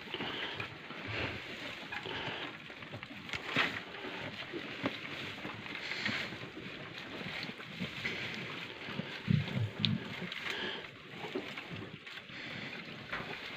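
Dry hay rustling and crackling as it is handled, with scattered sharp clicks and a brief low sound about nine seconds in.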